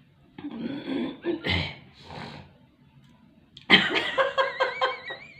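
Breathy huffs and sniffs through the nose as a woman tries to bring on a sneeze with an ear bud in her nostril, and the sneeze does not come. About two-thirds in, a loud burst of pulsing laughter follows.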